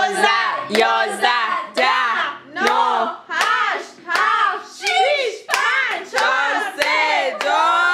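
A small group singing a birthday song together, with hands clapping along in time.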